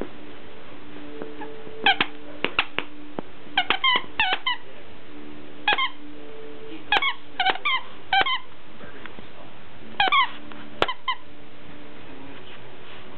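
Squeaker inside a plush Santa dog toy giving short, high-pitched squeaks in irregular clusters as two small dogs chew and pull on it.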